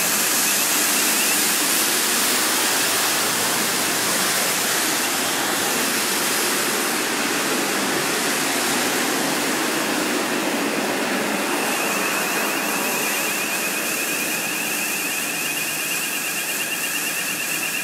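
Water mist kitchen fire suppression system discharging onto a cooking-oil fire: a loud, steady hiss of spray from the nozzles. A high warbling alarm tone sounds over it for the first second or so and again from about two-thirds of the way in.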